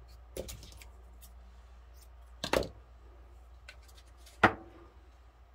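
Small handling sounds of craft work with baker's twine: scattered light clicks and rustles, with two sharper clicks about two and a half and four and a half seconds in.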